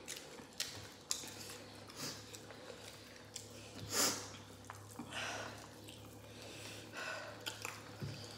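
Eating by hand close to the microphone: chewing and wet mouth noises, and fingers squishing rice and curried meat, with scattered small clicks and a louder noisy burst about four seconds in, over a faint steady low hum.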